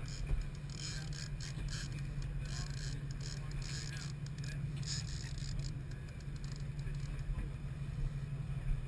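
A charter fishing boat's engine running steadily with a low hum, under a wash of sea and wind noise with scattered light clicks and rustles.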